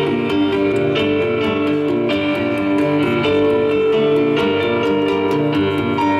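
Live instrumental passage of an acoustic guitar plucked in a steady rhythm over held chords on a stage keyboard set to a piano sound.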